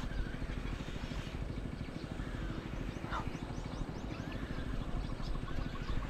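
Birds chirping in short high notes, a quick run of them in the second half, over a steady low rumble.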